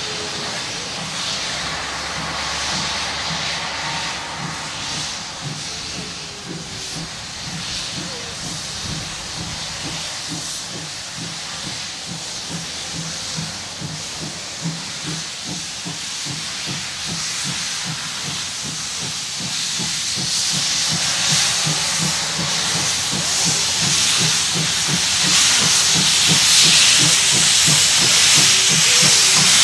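Steam locomotive 64 419, a class 64 tank engine, working a passenger train with a steady rhythm of exhaust beats. Steam hisses throughout, growing louder over the last ten seconds or so as the engine draws near.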